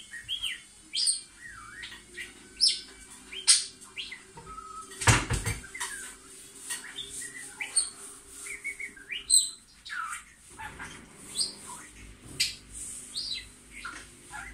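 Pet budgerigar (budgie) singing: a fast run of short chirps, squeaks and warbling glides, over a steady low hum. A single loud thump about five seconds in.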